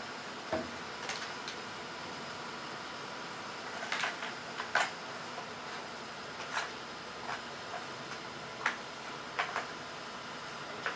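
Scattered light clicks and taps of small carburetor parts being picked up and set down on a workbench, about a dozen at irregular intervals, over a steady background hiss.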